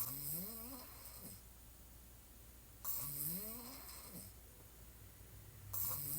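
A woman snoring on her back with her mouth open. Three snores come about three seconds apart, each a breathy hiss carrying a tone that rises in pitch.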